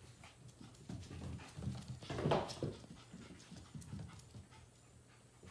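Sheepadoodle puppies' claws clicking on a hardwood floor as they scamper and play, with a dog panting. There is a louder burst of scuffling a little over two seconds in.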